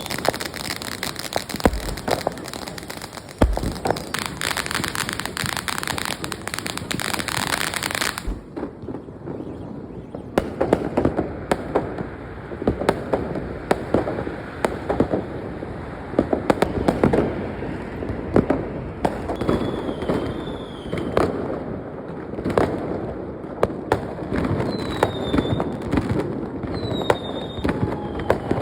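Chinese New Year fireworks and firecrackers: a dense, rapid crackle for about the first eight seconds that stops suddenly, then scattered bangs mixed with short whistles falling in pitch.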